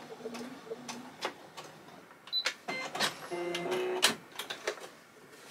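Brother Innov-is computerized sewing machine stitching a corner seam in short runs, its motor humming briefly, with scattered clicks from the machine and fabric handling. A short high beep comes about two seconds in.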